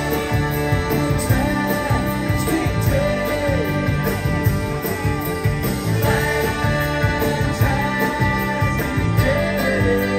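Live pop band playing: electric guitars, drum kit and congas on a steady beat, with a melody line bending up and down over the top.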